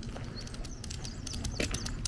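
Footsteps on a concrete path: quick, irregular clicks and scrapes that get denser toward the end.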